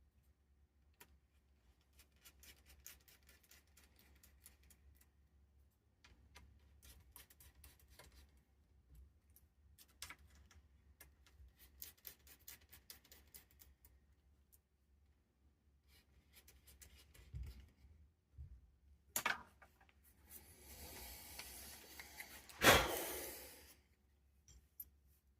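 Small tools and electronic parts handled on a workbench: scattered light clicks and scraping, a couple of dull knocks, then a hiss of about three seconds with one sharp, loud click in it near the end.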